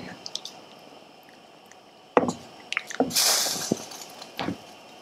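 Wooden spoon stirring flour dumplings in a pot of boiling water: several knocks of the spoon against the pot, and a splashing swish of water about three seconds in.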